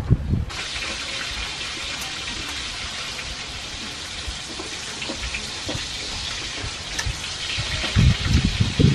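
A steady, even hiss, like rain, that starts abruptly about half a second in and holds level, with a few loud low thuds near the end.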